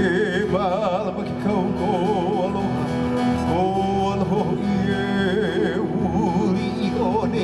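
Live Hawaiian music for hula: plucked guitar with a voice singing long notes with wide vibrato over a sustained low note.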